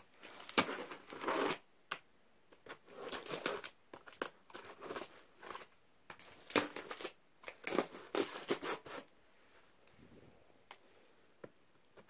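A knife slitting clear packing tape on a cardboard box: a run of short tearing and crinkling strokes with pauses between them, quieter for the last few seconds apart from a single click.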